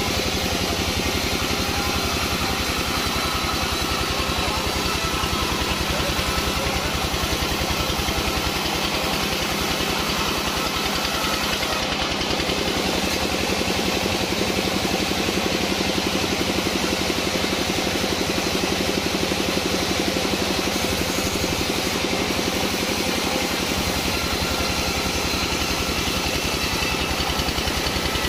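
A sawmill's engine running steadily at a constant speed, with a fast, even beat.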